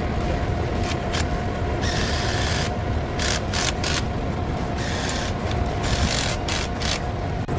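Steady drone of a large ventilation fan, with a constant hum tone, under several short, irregular scraping and rubbing noises from work going on nearby.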